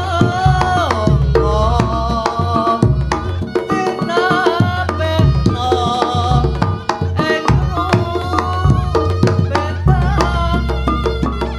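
Instrumental Javanese reog music played loud through a sound system: rapid hand-drum strokes and other percussion over a heavy bass, with a wavering high melodic line.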